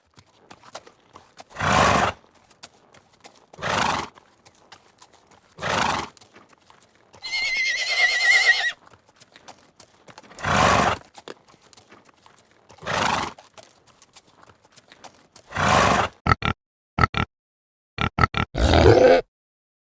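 A horse: short noisy blasts about every two seconds, with a wavering high-pitched whinny of about a second and a half partway through, and a quick run of short sharp sounds near the end.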